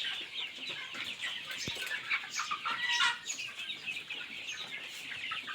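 A large flock of poultry-farm chickens clucking and peeping together, a dense, continuous chatter of many short calls, with a louder call about three seconds in.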